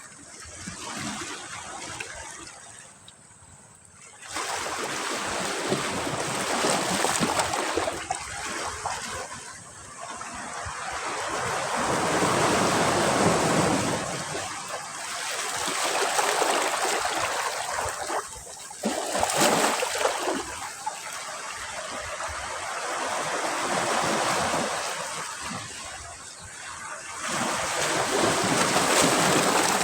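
Ocean surf: waves breaking and washing up a beach, a rushing surge that swells and recedes every few seconds. It is quieter at first and jumps up suddenly about four seconds in.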